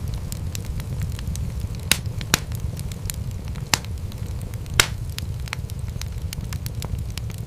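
Wood fire crackling over a steady low rumble, with scattered small snaps and four louder pops in the first five seconds.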